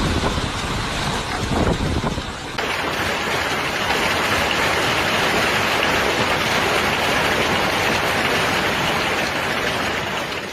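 Heavy storm downpour pelting down in a steady, dense hiss. A cut about two and a half seconds in changes to a second clip, where the downpour is steadier and slightly louder.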